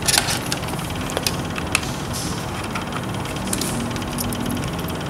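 A cooling fan humming steadily, with a few light clicks and knocks as a test-lead plug is pushed into a multimeter's sockets.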